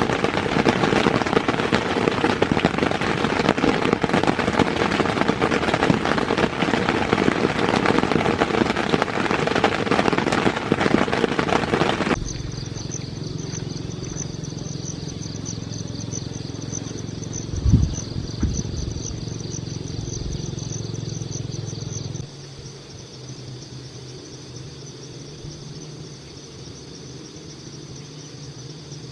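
Heavy rain pattering densely on a tent. About twelve seconds in it cuts off abruptly, leaving insects trilling steadily over a low hum, with a single thump a few seconds later.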